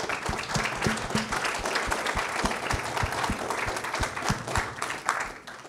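Audience applauding, with dense clapping that fades out near the end.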